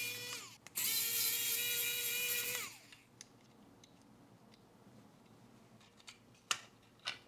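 Electric precision screwdriver running in two short bursts as it backs screws out of the radio chassis. Its motor whine holds steady, then drops in pitch as it stops, about half a second in and again near three seconds. A few light clicks follow near the end.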